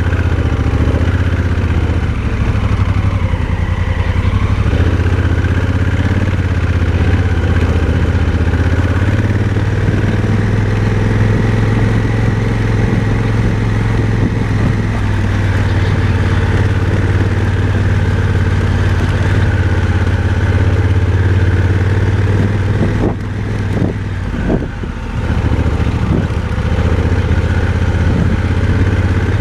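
Motorcycle engine running steadily while riding, a low even drone, easing off briefly with a few knocks about three-quarters of the way through before picking up again.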